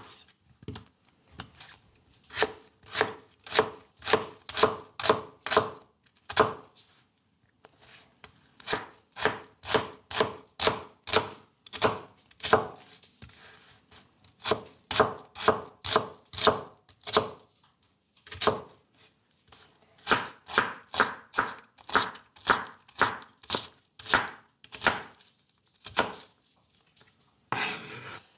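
A knife chopping an onion on a plastic cutting board: runs of sharp knocks, about two to three a second, broken by short pauses. Near the end the blade scrapes the diced pieces across the board.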